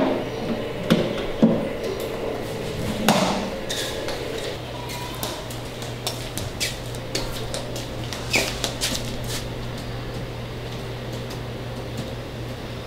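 Scattered knocks and clicks of objects being handled and set down on furniture, several close together in the first few seconds and fewer after, over a steady low hum.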